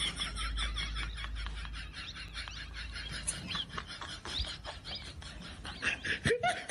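Birds chirping faintly in short high calls over a low wind rumble on the microphone; a man's voice starts near the end.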